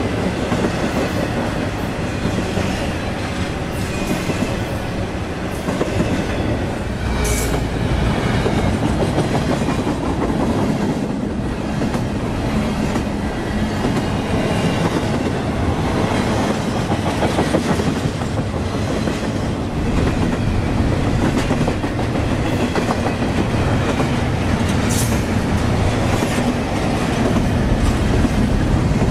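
Double-stack intermodal container train's well cars passing close by at speed: a steady rumble of steel wheels on rail with a running clickety-clack over rail joints. A brief high squeal comes twice, about seven seconds in and again near the end.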